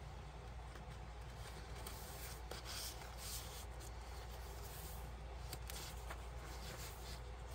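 Soft rustling and rubbing of paper: a paper tag is slid into a journal page's pocket and the page is turned, over a low steady hum.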